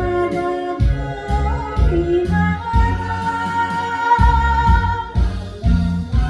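Korean trot song: a solo voice sings long, held notes over a backing band with a steady beat.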